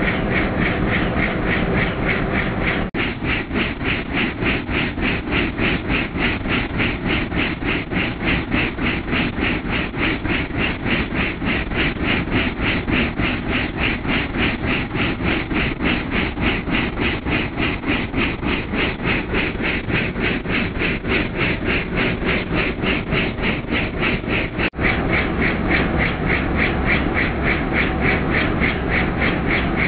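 Helicopter rotor and engine noise heard inside the cabin in flight: a steady, fast, even rotor beat over the engine drone, changing slightly at cuts about 3 s and 25 s in.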